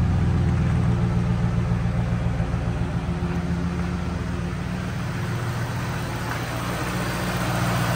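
2003 Mustang SVT Cobra's supercharged 4.6-litre V8 idling steadily after a cold start, with no unusual noises; the engine is stock.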